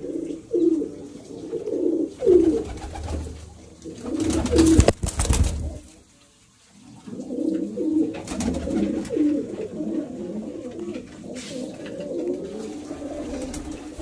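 Domestic pigeons cooing, many low overlapping calls. A loud burst of knocks and noise breaks in about five seconds in, followed by a brief lull before the cooing resumes.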